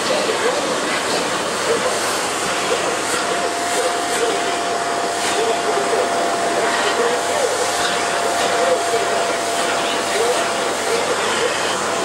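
Vacuum cleaner running steadily with a constant whine, its hose nozzle being drawn over a cat's fur.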